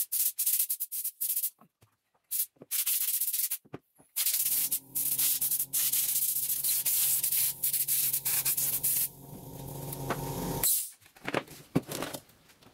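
Compressed air hissing from the air hose in several short blasts, then one long blast. Underneath, the oilless compressor's motor starts humming about four seconds in and runs on after the air stops, then cuts off suddenly near the end. A few clicks and knocks follow.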